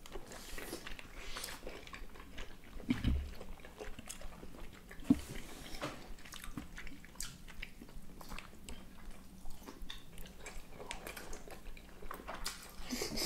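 Two people eating meat-filled khinkali dumplings close to the microphone: soft biting and chewing with many small wet mouth clicks. There are a couple of dull knocks about three and five seconds in.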